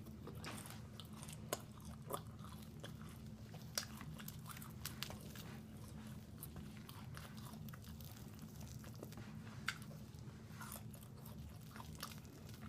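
A person chewing crispy fried chicken close to the microphone, with scattered sharp crunches and mouth clicks over a steady low hum.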